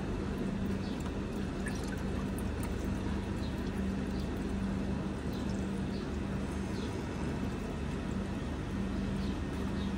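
Leftover automatic transmission fluid trickling and dripping out as the transmission oil pan is lowered off, over a steady low hum.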